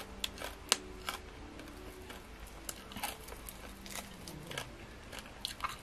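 Scattered small crackles and clicks as a grilled frog is torn apart with the fingers, along with quiet chewing.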